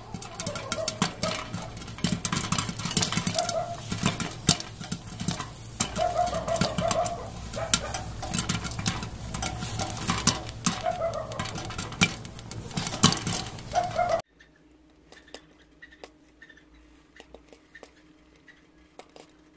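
Popcorn kernels popping in a covered kadhai of hot ghee, a fast run of sharp pops against the glass lid. About two-thirds of the way through the sound drops abruptly to quiet, with only an occasional pop after that.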